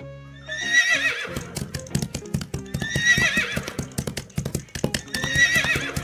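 Horse whinnying three times, about two and a half seconds apart, over rapid galloping hoofbeats that start about a second in.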